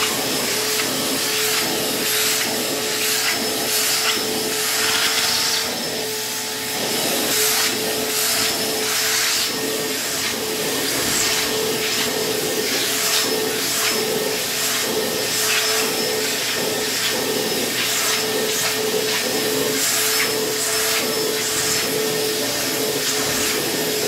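Vacuum cleaner running, its hose nozzle drawn back and forth over fabric sofa cushions to suck up dog hair. A steady whine runs throughout, with a hiss that swells and fades as the nozzle moves over the upholstery.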